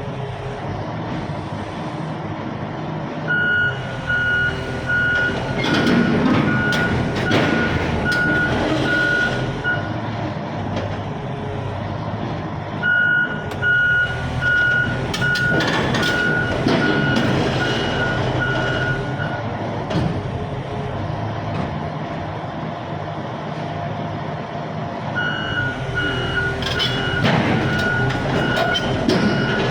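A heavy machine's warning alarm beeping in three long runs of evenly spaced beeps over a steadily running diesel engine, with louder clattering and rumbling in between, while a large excavator is moved onto a trailer.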